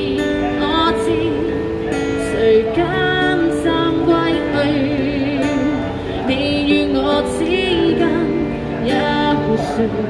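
Acoustic guitar accompaniment with a woman's voice holding long, wavering notes between sung lines of a slow Cantonese pop song.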